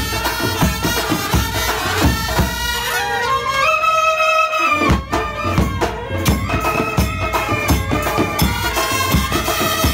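Background music with a steady beat and a melody of long held notes.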